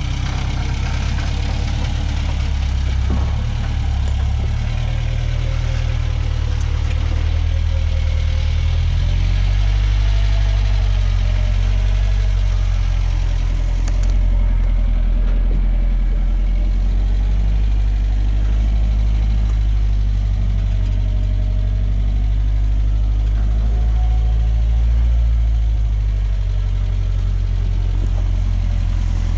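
Off-road truck's engine running steadily at low revs while crawling over rocks, a continuous low drone with slight shifts in pitch.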